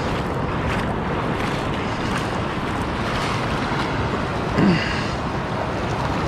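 Shallow surf washing in over wet sand, with wind on the microphone; a brief low pitched sound, like a short grunt, comes about two-thirds of the way through.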